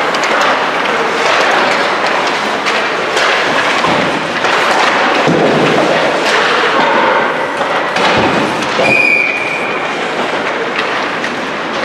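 Echoing ice-rink practice noise: skates scraping the ice, with pucks and sticks thudding and clattering against the boards several times. About nine seconds in, a whistle blows once for about a second.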